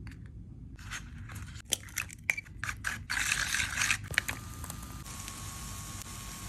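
Cooking sounds: a spoon clicking and scraping in a pan as egg is spread over rice paper, then a steady faint hiss.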